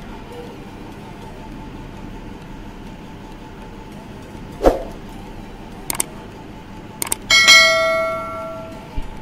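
Subscribe-button animation sound effect: a sharp swish, a couple of clicks, then a bright bell ding that rings out for about a second, over a steady low hiss.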